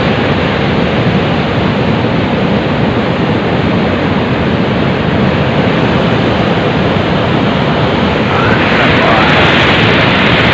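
Steady loud rush of surf and wind against the breakwater, growing a little brighter and louder near the end.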